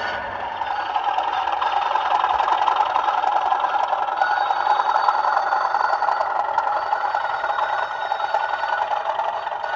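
Bachmann OO gauge Class 37 model's DCC sound decoder playing a recorded English Electric diesel engine through the model's small onboard speaker. The sound is thin, with little bass, and swells about a second in before easing off near the end.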